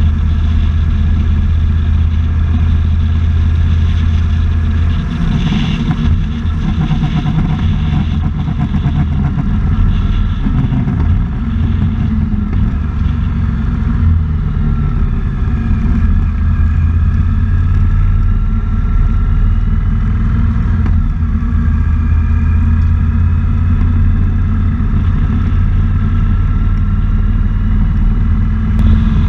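Motorcycle engine running at road speed, heard from a bike-mounted camera with wind noise on the microphone. The engine note shifts around five seconds in and again around twenty seconds in.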